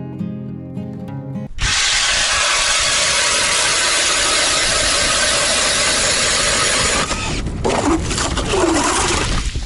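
Acoustic guitar music that stops abruptly about a second and a half in, replaced by a loud steady noise from an ice auger drilling through lake ice, which turns uneven and breaks up near the end.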